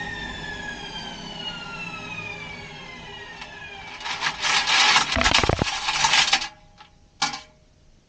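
Washing machine drum spinning down, its motor whine falling steadily in pitch. About four seconds in, a loud rough rushing, rasping noise runs for about two and a half seconds, then two short bursts, as the drum comes to rest.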